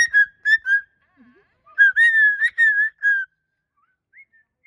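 Moluccan cockatoo whistling at one steady pitch: a quick run of short notes, then a longer wavering whistle about two seconds in.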